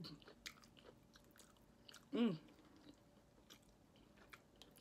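Close-mouthed chewing of a sauce-soaked fried chicken sandwich: soft wet mouth clicks and smacks, with one short hummed sound of the voice about two seconds in.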